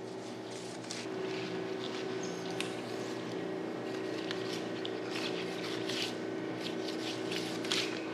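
A large kitchen knife cutting through a shark head on a wet wooden board: irregular short scraping and squelching strokes of the blade, over a steady background hum.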